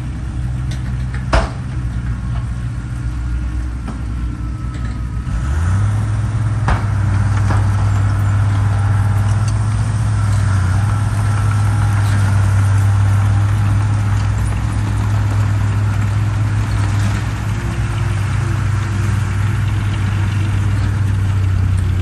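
Diesel engines of a crawler bulldozer and dump trucks running steadily, with a single sharp knock about a second in; after about five seconds a heavier, louder engine note comes in and holds as a loaded dump truck drives up close.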